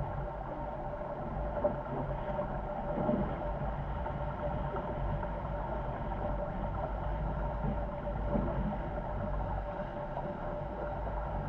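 Wind buffeting and water rushing past the hulls of a Corsair F-24 MKII trimaran sailing fast in a strong breeze, with a deep rumble and a steady hum.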